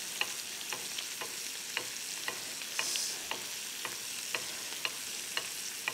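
Lamb rump sizzling in foaming butter in a frying pan as a metal spoon bastes it, the spoon clicking against the pan about twice a second. A brief louder hiss about halfway through.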